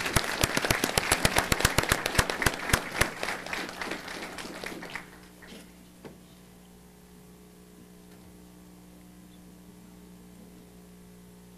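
Audience applauding, the clapping thinning out and stopping about five seconds in. A steady low hum remains underneath.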